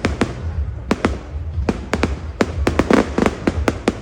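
Fireworks display: a rapid, irregular run of sharp bangs and crackles from bursting shells over a steady low rumble, growing denser about three seconds in.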